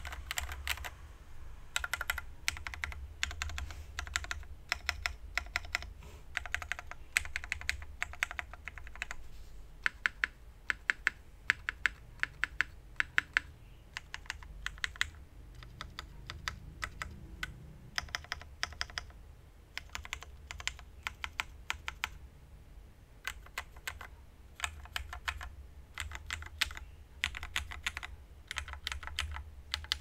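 Keystrokes on a KMG TKL sandwich-mount mechanical keyboard with lubed, filmed Old BCP switches (old black housing, cream stem), a PC plate and Keykobo Sea of Clouds keycaps: clusters of quick key clacks and rapid runs of presses separated by short pauses.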